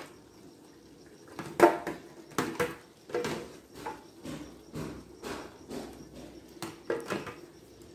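A metal ladle scraping and knocking against a metal baking pan while spreading hot tomato sauce, a series of short scrapes and taps. They begin about a second and a half in, and the first is the loudest.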